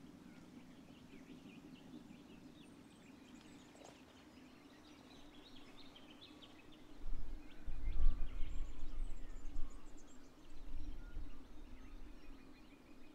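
Wild birds chirping and calling in the background, many short high calls. From about seven seconds in, a louder low rumble comes in for around four seconds and dies away near the end.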